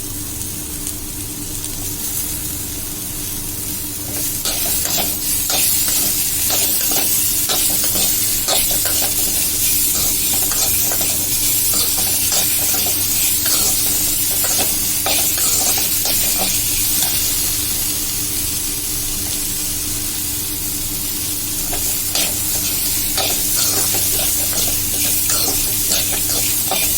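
Onion, green chilli, ginger, garlic and tomatoes frying in oil in a kadai. The pan sizzles steadily while a spatula stirs and scrapes with frequent clinks, and the sizzle grows louder about four seconds in.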